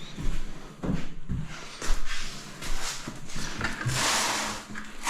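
Irregular knocks, bumps and scrapes of a wooden vanity cabinet being handled and shifted, with a longer scraping hiss about four seconds in.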